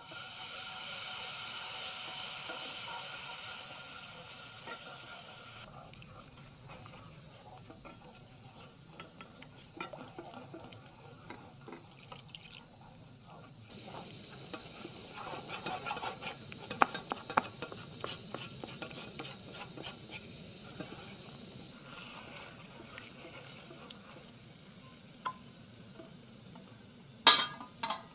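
Syrup poured into a hot pan of fried flour for kachi, sizzling loudly for the first few seconds. Then a wooden spoon stirs the thickening mixture in the metal pan, with a steady hiss and many small scrapes and clicks, and one sharp knock against the pan near the end.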